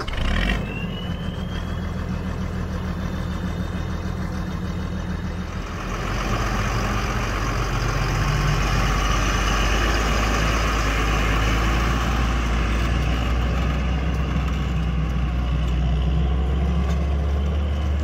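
Fendt 920 Vario TMS tractor's MAN six-cylinder diesel working under load, a steady deep drone with a brief rising whistle just after it starts. From about six seconds in it grows louder and rougher as the tractor pulls a Horsch Joker disc harrow.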